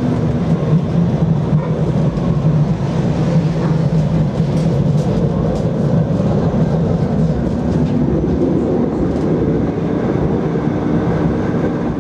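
Siemens NF8 tram running along street track, heard from on board: a steady running rumble with a low motor hum, and a few faint clicks around the middle.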